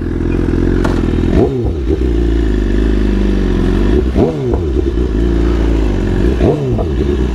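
BMW S1000RR inline-four sport-bike engine running at low speed, its pitch rising and falling three times as the throttle is opened and closed.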